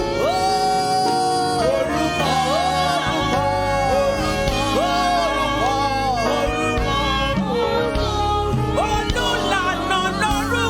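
Gospel praise-and-worship music: a sung melody over sustained instrumental chords.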